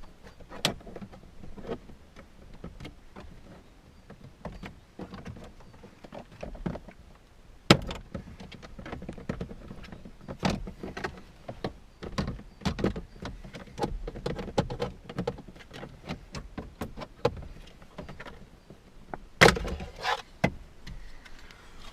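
Plastic instrument-cluster trim panel of a Lada Vesta being worked loose from its dashboard clips: irregular plastic clicks and knocks, with two sharper snaps, one about a third of the way in and one near the end.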